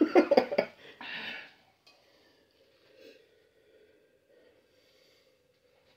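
A man breathing hard through the burn of a super-hot chip: a second of sharp, voiced huffs and groans, then one long breath out, then quiet with a faint steady hum.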